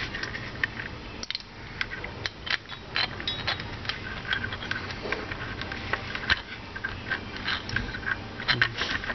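Irregular clicks and knocks of hard plastic and metal parts as an electric jigsaw's motor armature and gear housing are handled and pressed into the plastic casing half.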